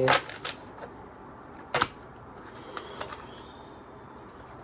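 A few sharp taps and flicks of tarot cards being handled on a table, the loudest about two seconds in.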